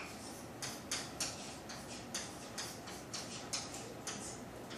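Chalk writing on a chalkboard: a quick, irregular run of short taps and scrapes, about two a second, as letters are drawn.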